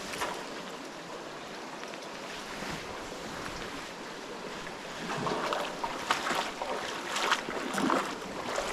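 Steady rush of a flowing river, with louder irregular noisy bursts from about five seconds in.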